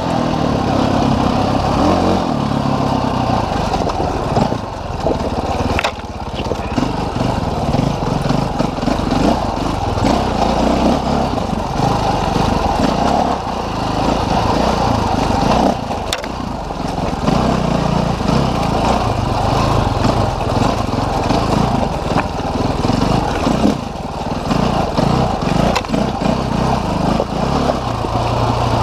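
Dirt bike engine running on a rocky woodland trail, the revs rising and falling with the throttle and easing off briefly a few times. A couple of sharp knocks are heard, about six and sixteen seconds in.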